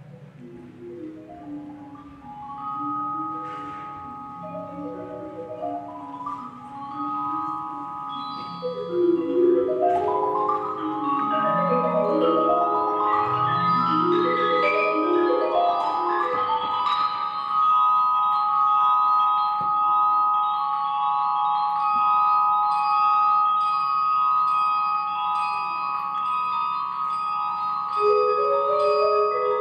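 Percussion ensemble playing, led by marimbas and other mallet keyboards: rapid rising and falling runs of notes over a steady low note, with high notes held on. The music starts soft, swells to loud over about the first ten seconds and stays there, and a new louder figure comes in near the end.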